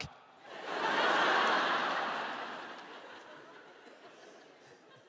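Large theatre audience laughing at a punchline, swelling about a second in and dying away over the next few seconds.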